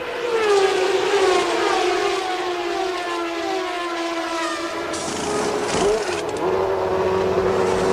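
1992 Formula One car engine at high revs, its note falling steadily in pitch over about five seconds. About five seconds in the sound changes abruptly, and then another high-revving engine holds a steady note.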